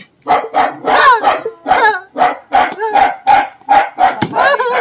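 A dog barking rapidly and repeatedly, about three barks a second, some barks sliding up and down in pitch.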